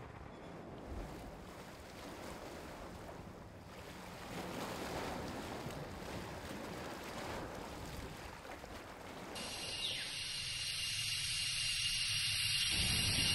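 Electronic soundtrack music: a noise wash like surf that changes abruptly about nine seconds in to a brighter, hissing, buzzy texture with a steady high tone, growing louder toward the end.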